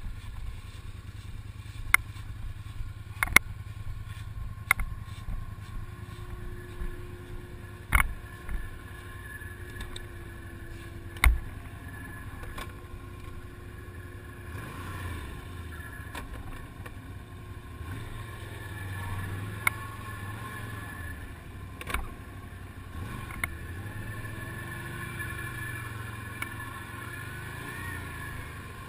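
ATV engines running at low revs, the steady drone growing louder and more uneven in the second half as a quad works through a muddy rut. Several sharp knocks stand out over it in the first half.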